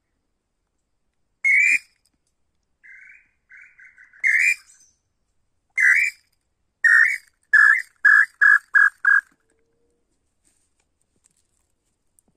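Tataupa tinamou singing: a series of loud whistled notes that come closer and closer together and drop slightly in pitch, ending about nine seconds in. A few faint, quieter notes sound between the first and second loud notes.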